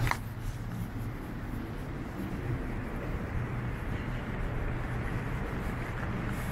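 City street ambience: a steady low rumble of traffic, with a brief click right at the start.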